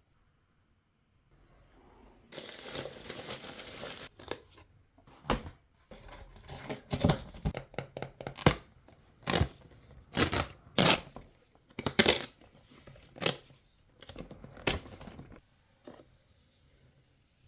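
Blind-box packaging being torn open in one continuous rip, then the wrapping crinkled and handled in a run of sharp crackles.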